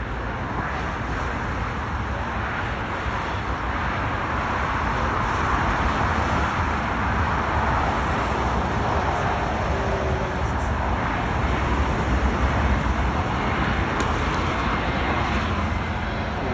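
Jet engine noise of an Airbus airliner on approach: a steady rushing roar with a low rumble that grows gradually louder.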